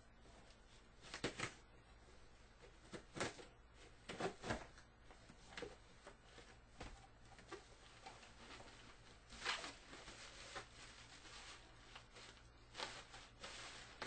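Cardboard shipping box being opened by hand: a knife slitting the packing tape, then the flaps and the bubble-wrap packing inside rustling, heard as quiet scattered scrapes and crackles.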